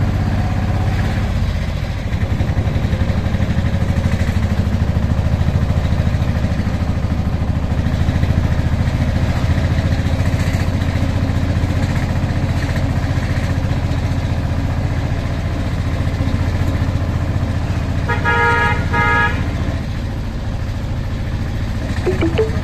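Auto rickshaw's small engine running steadily, heard from inside the open passenger cab. A vehicle horn sounds once for about a second near the end.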